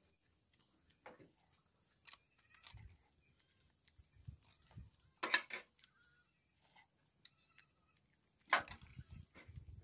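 Several sharp knocks, like chopping or striking on wood. The two loudest come about five and eight and a half seconds in, with fainter ones scattered between.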